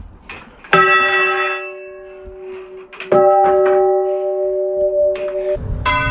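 Church bells struck three times a couple of seconds apart, each stroke clear and ringing on. The third stroke sounds a lower note than the first two.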